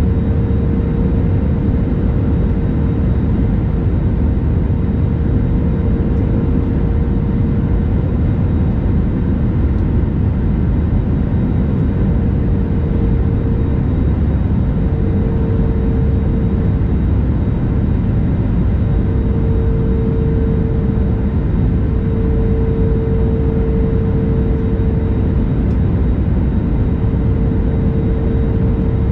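Airbus A320neo jet airliner in flight, heard from inside the cabin: a steady loud rumble with a constant engine tone that wavers slightly in strength.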